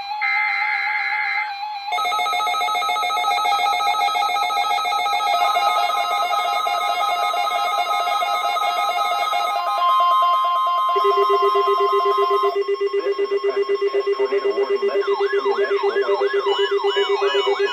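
NOAA Weather Radio tornado-drill alert playing on several radios at once, layered electronic tones. It opens with short bursts of SAME data tones, then overlapping steady tones, with a steady warning-alarm tone near 1 kHz for a couple of seconds near the middle. From about two-thirds of the way in, a steady tone pulses about four times a second under repeating rising siren-like sweeps.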